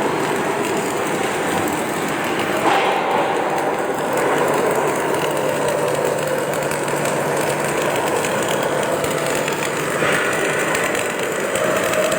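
Automatic welding machine at work: a continuous, dense hiss with a faint low hum through the middle and a brief louder surge about three seconds in.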